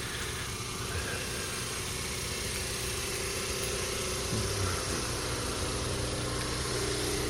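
A car engine idling steadily, its note shifting slightly a little past four seconds in.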